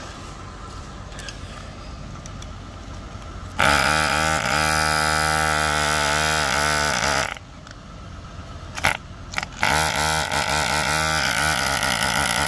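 Portable tire inflator's air pump kicking on about three and a half seconds in and running with a loud buzzing drone. It cuts out for about two seconds, there are a couple of clicks as the faulty on/off switch is worked, and then it starts again and keeps running.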